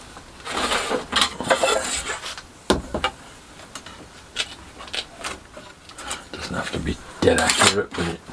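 Scratching strokes of a pen drawn along a steel rule on a plastic sheet, with clicks and clinks of the steel rule being handled and set down on the workpiece. There is one sharp knock a little under three seconds in.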